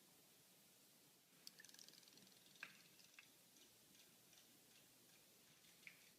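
Near silence, with a few faint, short clicks.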